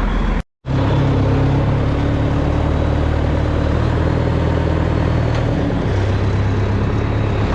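Heavy diesel engine of a logging machine running steadily, after a brief total dropout in the sound about half a second in.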